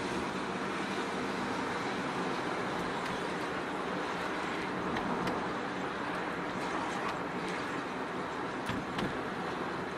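Car driving, a steady mix of engine and tyre noise, with a few faint clicks.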